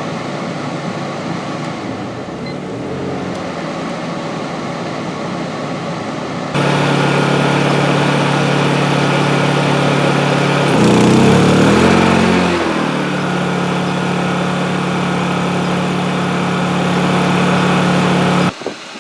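Honda EU2000i inverter generator's small single-cylinder four-stroke engine running under load. About six seconds in it steps up to a louder, faster run. Around eleven seconds its pitch sags and wavers for a couple of seconds as it bogs down under the air conditioner's compressor start-up surge, then recovers to a steady run. The sound cuts off suddenly near the end.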